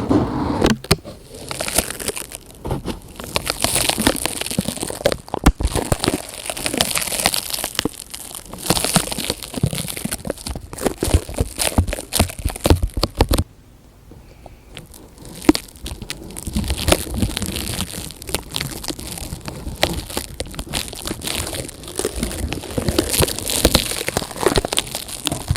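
Plastic crinkled and crumpled close to a microphone: dense, irregular crackling that stops for about two seconds a little past halfway, then resumes.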